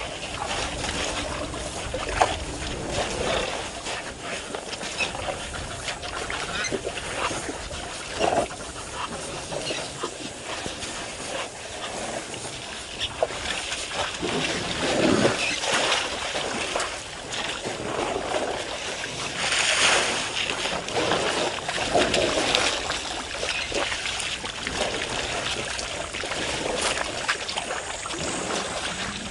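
African elephants drinking and wading at a waterhole: water splashing, sloshing and trickling as trunks dip and lift, in irregular bursts with several louder splashes past the middle.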